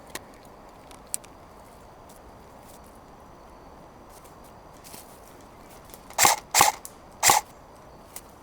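Three sharp airsoft gun shots in quick succession, a few seconds in, over a quiet background with a few faint clicks.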